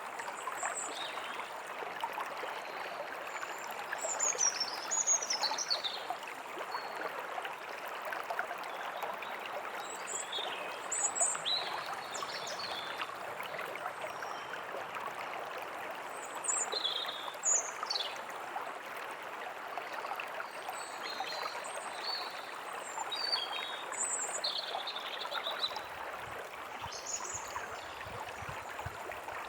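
A stream running and trickling steadily, with small birds chirping and calling on and off, short high chirps and quick falling notes.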